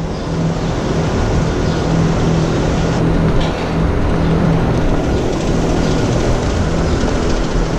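Steady mechanical drone with a constant low hum running through it, from machinery running in a dairy barn.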